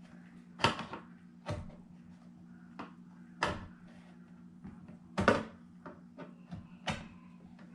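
Plastic clicks and knocks, about six at irregular spacing, as the clip-on plastic back cover of an all-in-one desktop computer is pried loose. The loudest comes about five seconds in.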